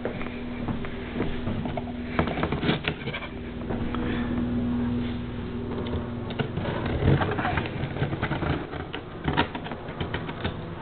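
A cardboard box's packing tape being slit and the box handled: irregular scratching, rustling and clicks on the cardboard, over a steady low hum.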